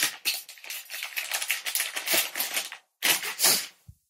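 Crackly rustling with many small clicks, from hands handling something close to the microphone. It pauses briefly near the three-second mark, then comes back as a short burst and a single click near the end.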